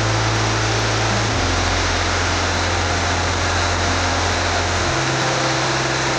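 The 97-metre Todtnau waterfall rushing: a loud, steady, dense roar of falling water. Low sustained music notes sit underneath and change pitch twice.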